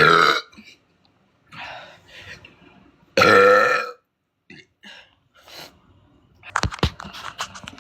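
A woman burping loudly twice, about three seconds apart: a short burp at once, then a longer, pitched burp of nearly a second. A few sharp knocks follow near the end.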